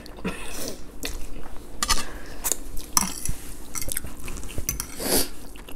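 Close-up eating sounds: metal forks clinking and scraping on plates while twirling spaghetti, with noodles slurped and chewed. There are many short sharp clicks throughout.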